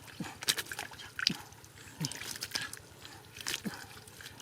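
Wet splashing and squelching of hands working through mud and shallow water, a string of irregular short drips and slaps.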